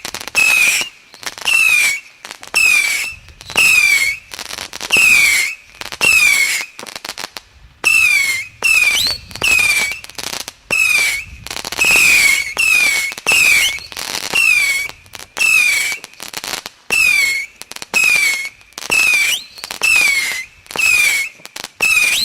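A 50-shot firework battery cake ("Zenitka 50") firing its shots in a rapid regular series, about one and a half a second. Each shot carries a short falling whistle.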